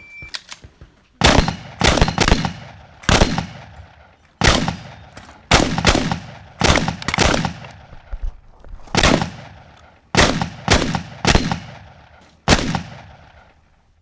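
A shot-timer beep, then a 12-gauge shotgun fired about fifteen times in quick pairs and runs with short pauses between groups, each shot echoing: a practical shotgun competition stage being shot. The shooting starts about a second after the beep and stops over a second before the end.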